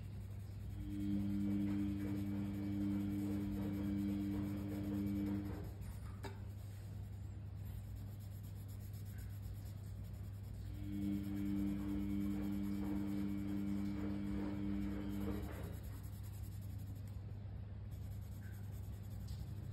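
Coloured pencil scratching on paper in two spells of quick back-and-forth strokes, each lasting about five seconds, over a steady low hum.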